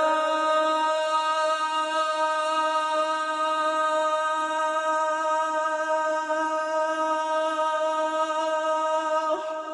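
A muezzin's solo voice chanting the adhan, holding one long steady note on the drawn-out end of "hayya 'ala l-falah" ("come to success"), fading out near the end.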